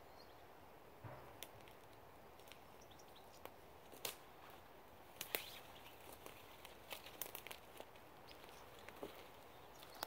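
Faint forest ambience: a soft steady hiss with scattered light crackles and snaps of dry leaf litter, a few at first and more in a cluster about five to seven and a half seconds in.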